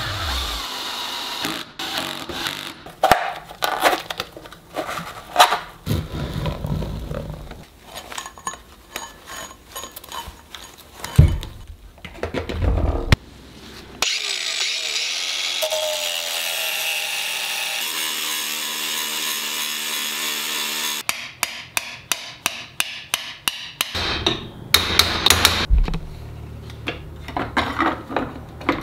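Workshop build sounds. First a drill drives screws into the wheel hub, among assorted clicks and knocks. About 14 seconds in, an angle grinder cuts through a steel rod for about seven seconds, and a quick run of clicks and handling knocks follows.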